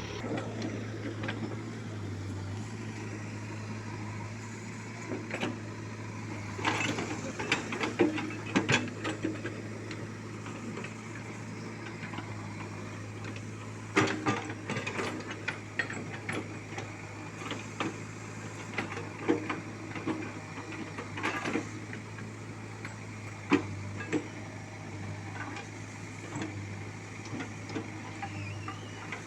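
Case 851 backhoe loader's diesel engine running with a steady low drone, with irregular sharp metallic clicks and clanks from the machine's working parts over it.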